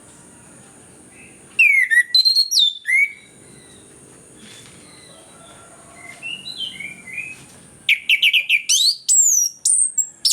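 Orange-headed thrush singing in loud bursts of rapid, sliding whistled notes. A softer warbled phrase comes in the middle and a fast run of notes near the end, over a faint steady high tone.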